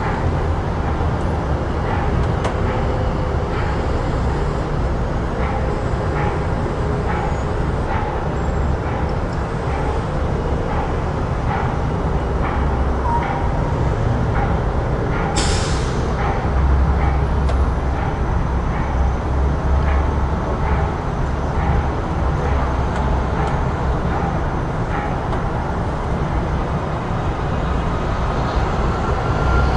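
Busy city street ambience: a steady low rumble of passing traffic with scattered small clicks and knocks, and one short sharp hiss about halfway through.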